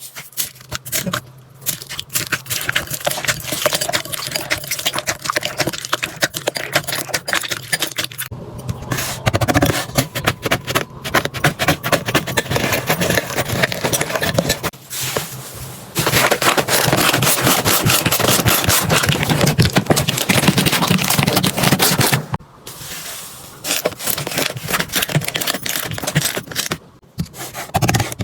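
Slime being squeezed, pressed and stretched by hand, with a dense run of rapid crackling clicks and pops. It comes in several stretches broken by short pauses, and is loudest in the middle.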